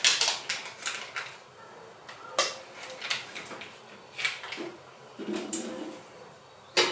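Small plastic tub and kitchenware being handled on a counter: a run of light clicks, taps and rustles, with a sharp knock about two and a half seconds in and another near the end.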